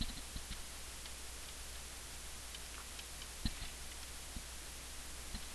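A few faint taps and clicks of a stylus writing on a pen tablet, over a steady low hiss and hum of the recording.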